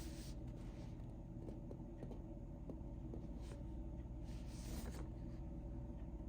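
Faint rustling and a few small clicks of packaging being handled and opened, over a steady low hum.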